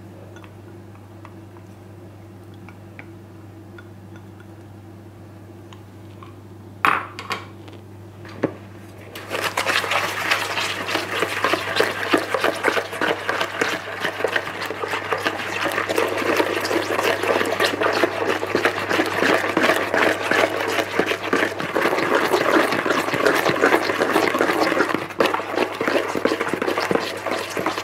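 A steady low hum with two short knocks, then from about a third of the way in a fast, continuous scraping and clatter of a utensil beating melted butter and sugar together in a bowl, creaming them.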